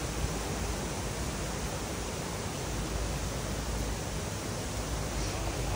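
Forest stream water rushing steadily, an even unbroken hiss.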